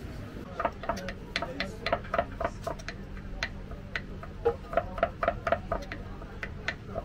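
Kitchen knife chopping cooked lamb head meat on a wooden cutting board: a quick, uneven run of sharp knocks, several a second, starting about half a second in.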